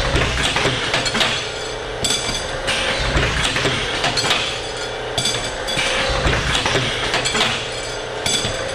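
Automatic batch tube cutter running through its cycle on steel brake and fuel line tubing: metallic clanking and clinking that repeats about every two and a half seconds, each cycle with a low thump and a bright rattle.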